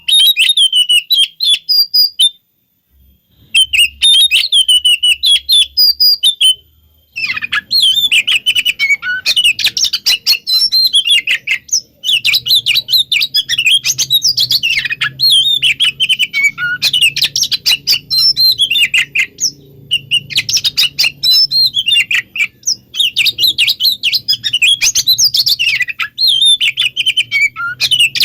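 Oriental magpie-robin (kacer) singing a fast, chattering song in the excited 'konslet' style used as a lure, in quick runs of notes with brief pauses in the first seven seconds and then almost without a break. A faint low hum runs under the song from about seven seconds in.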